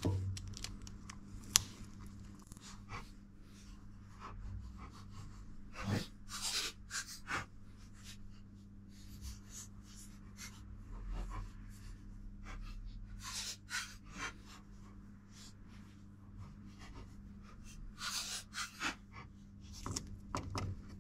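Clear adhesive tape being pulled and pressed down over thin wires: short scattered rips and rustles, a few clustered together, over a faint steady low hum.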